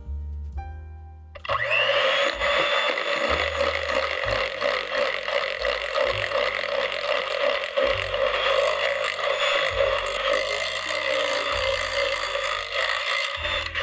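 Electric hand mixer running at a steady speed, its beaters churning flour into cake batter in a glass bowl. It switches on about a second and a half in and winds down near the end, over soft background music.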